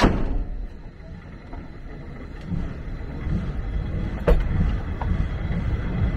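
A sudden loud clank, then the rumble of a railway carriage rolling on the track, growing steadily louder as the train gathers speed, with a sharp click from the rails about four seconds in.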